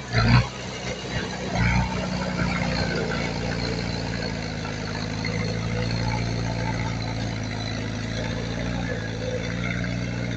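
Heavy diesel engine of earthmoving machinery running steadily, with two brief louder bursts in the first two seconds.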